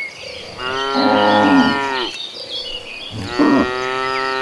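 Cattle in a herd mooing: two long moos, one starting about half a second in and another near three seconds, overlapping with other cows calling.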